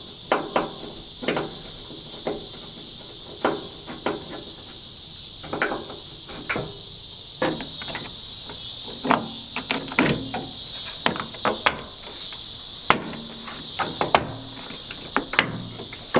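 Irregular clicks and knocks of hand work on a pickup truck door's parts, about two dozen in all, with the loudest strike a little past the middle. Behind them runs a steady high chorus of insects.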